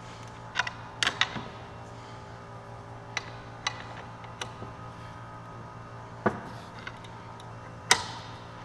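Scattered metal clinks and knocks as a differential carrier on setup bearings is handled and fitted into a Salisbury rear diff housing, a quick cluster about a second in and the loudest clink near the end, over a steady low hum.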